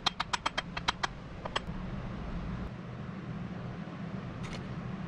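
A quick run of light, sharp taps, about a dozen in the first second and a half, on a cast plaster core box half and the wooden pattern piece set in it, knocking the pattern loose. Then a low steady hum with one short click near the end.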